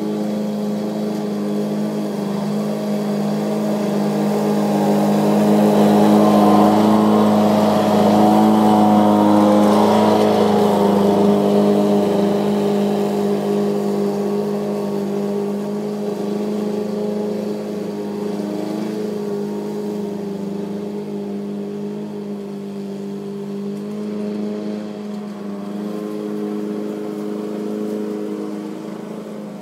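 Lawn-Boy gas mower's two-stroke engine running steadily under load while mowing. It grows louder as the mower passes close several seconds in, then fades as it moves away.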